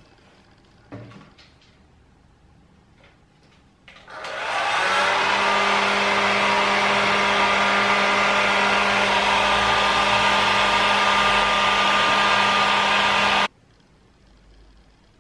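Small electric blower motor switched on about four seconds in, building up within a second to a steady whir with a hum, then cutting off suddenly near the end.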